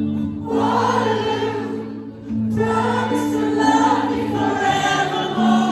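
Live band playing a slow ballad: a male singer sings two long phrases over held keyboard-like chords, recorded from among the audience.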